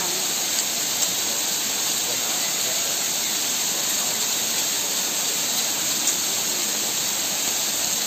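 Steady rushing of a waterfall pouring onto rocks and into a pool.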